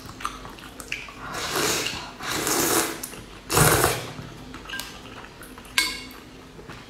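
A person blowing on a spoonful of hot noodle soup: three breathy puffs, the third the loudest, then a sharp clink of utensils on the metal pot near the end.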